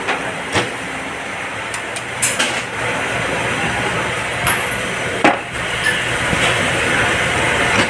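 Drill press running steadily while drilling small metal parts, with a low hum and a hiss. Several sharp metallic clinks come through as parts are handled, the loudest about five seconds in.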